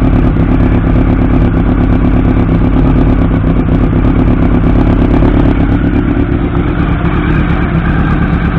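A 1989 Honda CB-1's 400cc inline-four engine running steadily, with a slight shift in pitch near the end.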